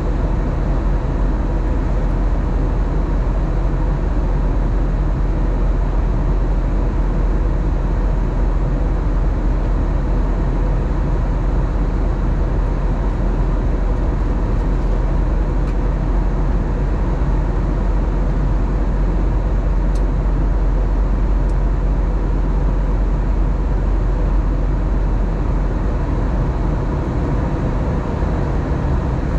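Steady cabin noise of an Airbus A321neo in flight: a deep rumble of airflow and engines with a faint steady hum over it.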